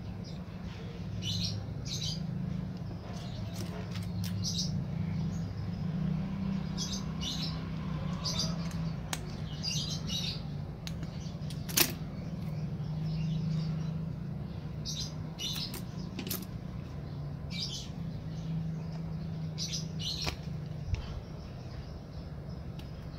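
Small birds chirping: short high chirps coming irregularly throughout, over a steady low hum, with one sharp click about twelve seconds in.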